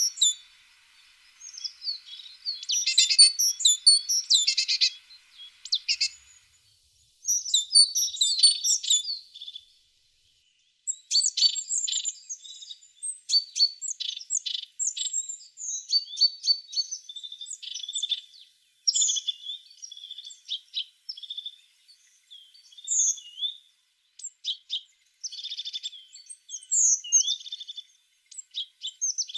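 Tit singing: bursts of high chirps and trills with short pauses, turning into near-continuous twittering after about ten seconds.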